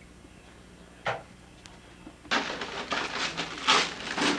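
Wrapping paper rustling and crinkling as a present is handled, starting about two seconds in, after a single sharp click about a second in.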